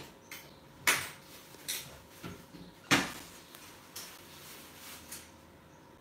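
Kitchen cookware being handled: a few sharp metal knocks and clatters at irregular intervals, the loudest about a second in and about three seconds in.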